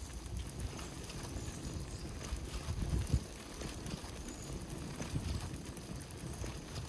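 Mountain bike being ridden with its rear tyre let down soft: a low rumble of the tyres rolling over the ground, with irregular knocks and clicks from the bike and a louder knock about three seconds in.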